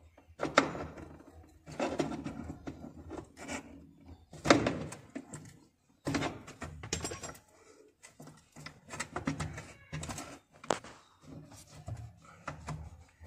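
Hands and pliers working a spring clip off the rubber fuel hose on a car's petrol filter: a scatter of irregular clicks and knocks with handling rustle in between.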